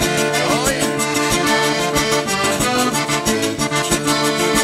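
Live Cajun/zydeco band playing instrumentally. An accordion carries the tune over a steady scraped beat from a frottoir (rubboard), with a strummed acoustic guitar underneath.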